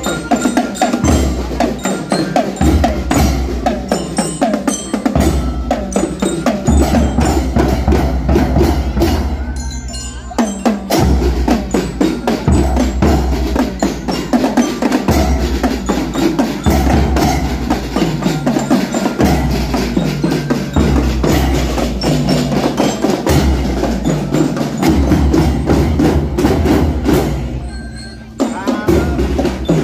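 A children's marching drum band playing a rhythmic beat on bass drums, snare drums and cymbals, with hand-held mallet instruments ringing over it. The playing drops out briefly about ten seconds in and again near the end.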